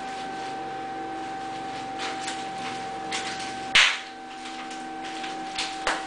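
An African grey parrot popping bubble wrap with its beak: about six sharp pops at irregular intervals, the loudest a little past halfway through.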